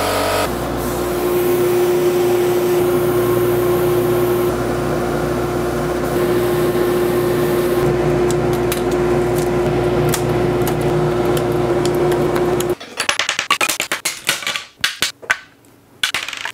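Home-built laser cutter running: a steady hum with one constant mid-pitched tone over a hiss. It cuts off suddenly about 13 seconds in, and scattered clicks and light knocks follow as small laser-cut wooden parts and hardware are handled on a table.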